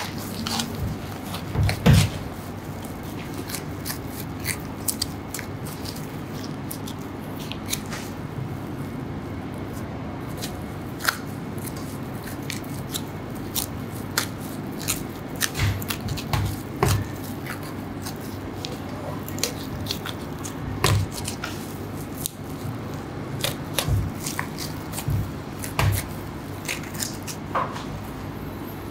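Butcher's knife cutting through a large piece of raw beef on a wooden board: scattered soft clicks, scrapes and taps of the blade against meat and board over a steady low background hum.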